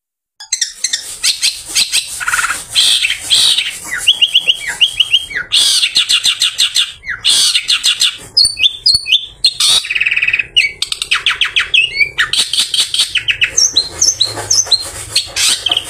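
Long-tailed shrike (pented, cendet) singing a fast, varied song of rapid high trills and quick chattering note runs, starting about half a second in and going on almost without pause.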